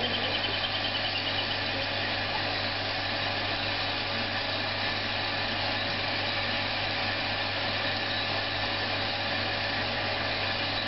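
A motor running steadily: a constant low hum with a few fixed higher tones over an even rushing noise, unchanging throughout.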